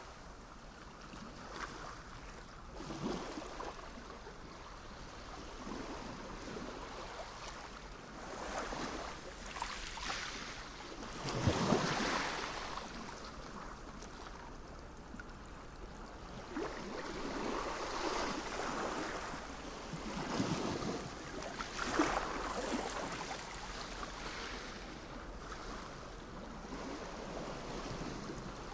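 Sea waves breaking and washing on the shore, coming in uneven surges every few seconds over a steady hiss of surf.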